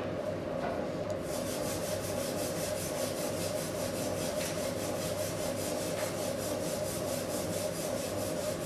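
Electric potter's wheel running with a steady hum while hands rub the wet clay of a pot spinning on it; a fast, even rhythmic swish joins in about a second in.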